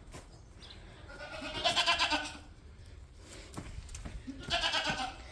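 Two long, wavering bleats from a farm animal, about three seconds apart.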